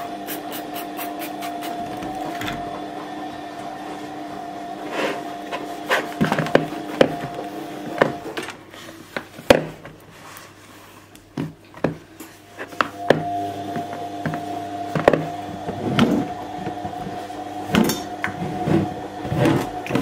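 Cleaning a kitchen worktop: a cloth rubbing and wiping over the surfaces and round a toaster, with knocks and clatters as items are lifted and set down. A steady hum runs underneath and drops out for a few seconds in the middle.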